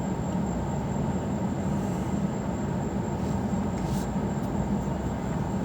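A steady low rumble of a running vehicle, even and unchanging throughout.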